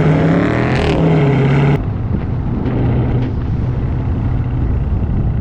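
Car engine running loud, its pitch shifting over the first second or so; about two seconds in the sound cuts abruptly to a steadier, slightly quieter engine note.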